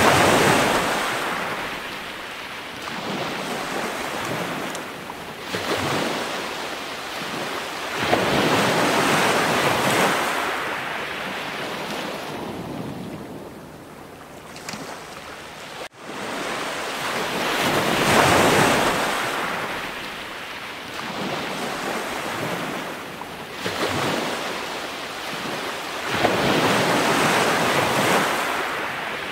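Waves washing on a shore: a rushing noise that swells and fades every few seconds, cutting out for an instant about halfway through.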